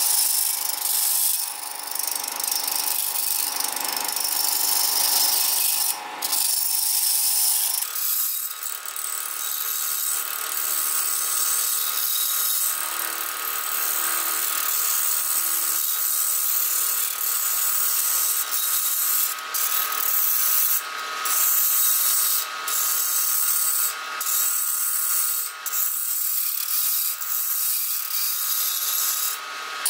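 Wood lathe spinning a bamboo section while a hand-held turning tool cuts away its green skin: a steady hiss and scrape of cutting over the lathe motor's whine. There are several brief breaks as the tool eases off the work.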